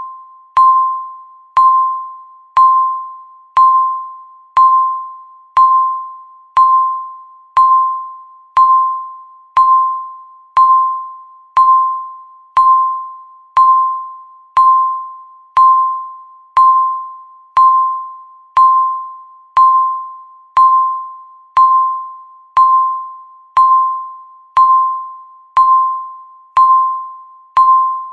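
Digital countdown timer's tick sound: a short, bell-like ding with a sharp click at the start, repeating once a second and fading quickly each time.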